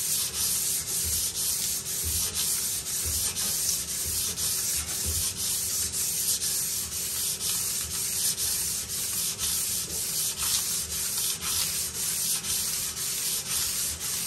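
80-grit sandpaper on a sanding block rubbed back and forth along a bead-blasted metal pinball lockbar, in quick, even, repeated strokes that put a grain on the metal.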